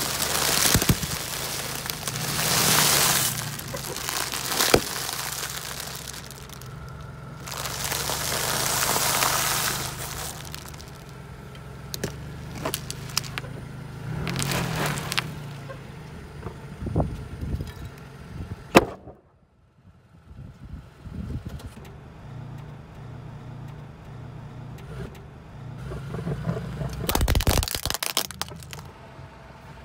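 A car tyre slowly rolling over objects and crushing them, one after another. Loud bursts of crunching and crackling, the first from bags of puffed snacks, with sharp cracks in between, over the steady low hum of the idling car.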